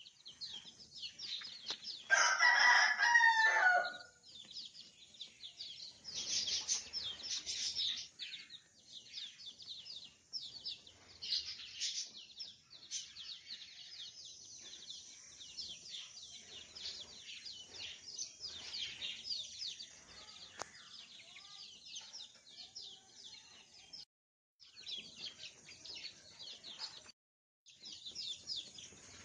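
Three-month-old chicks peeping and cheeping continuously in high, short chirps as they feed. A rooster crows once loudly about two seconds in. The sound cuts out briefly twice near the end.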